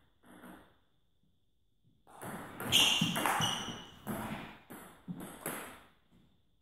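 Table tennis rally: the ball clicking off paddles and the table about twice a second, each hit ringing on in a large hall. The rally starts about two seconds in and stops shortly before the end.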